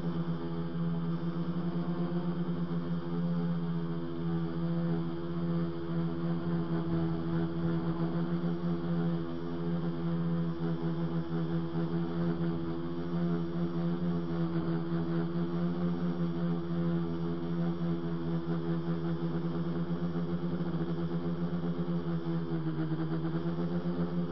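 Electric motors and propellers of a multirotor tricopter buzzing steadily in flight, a droning hum with one main pitch; the pitch dips briefly and comes back up near the end as the throttle eases.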